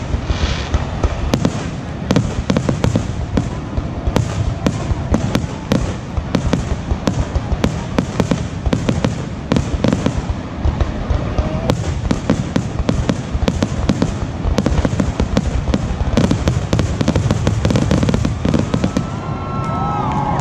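Aerial fireworks shells bursting in a rapid, continuous barrage of bangs and crackles, many per second. The bangs thin out near the end.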